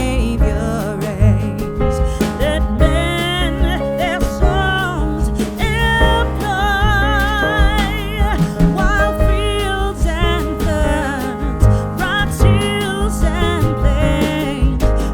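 Background music: a song with a singing voice over bass and instruments.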